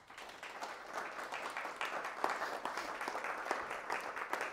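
Audience applauding, starting abruptly and building over the first second.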